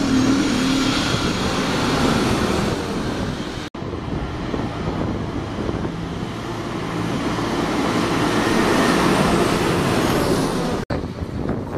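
Buses passing close by in town street traffic, engines running and tyres on the road. The sound cuts out for an instant twice, once about four seconds in and once near the end.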